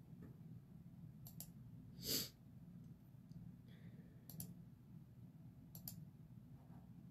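Faint clicks on a computer, in three quick pairs: about a second in, about four seconds in and near six seconds. A single short breath comes about two seconds in, over a faint low hum.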